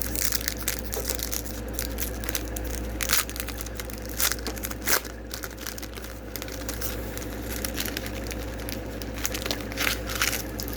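Foil wrapper of a Japanese Pokémon card booster pack being torn open and crinkled by hand: irregular sharp crackles and rustles, over a steady low hum.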